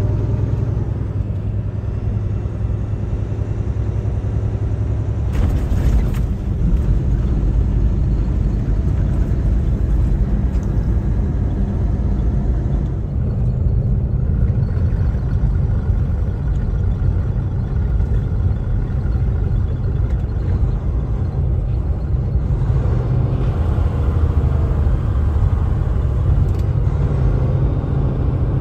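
Kenworth T680 semi truck heard from inside the cab while driving: a steady low rumble of engine and road noise.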